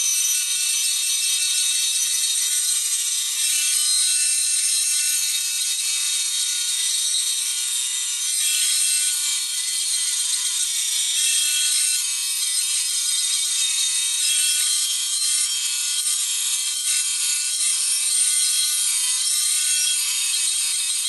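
Small, low-powered benchtop bandsaw running steadily with a high, even whine while its blade cuts the outline of a guitar body from a wooden blank.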